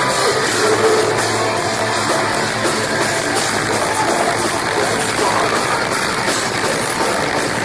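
Metalcore band playing live: loud, dense full-band music with drums, continuing steadily throughout.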